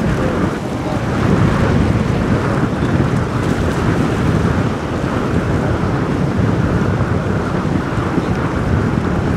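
Wind buffeting the microphone, a steady low rumble, over the churn of a sportfishing boat motoring through choppy water with its wake breaking.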